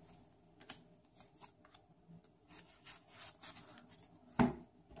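Soft, scattered clicks and rustles of Yu-Gi-Oh! trading cards being flipped through and set down by hand, with one louder rustle or knock a little before the end.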